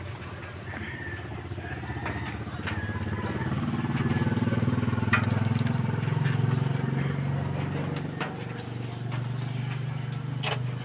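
A vehicle engine running, swelling to its loudest about halfway through and then fading, with a few sharp clicks over it.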